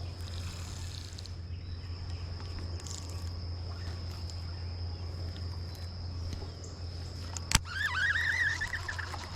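A bird gives a wavering call near the end, just after a sharp click. Underneath runs a steady low hum and a thin, high, steady whine.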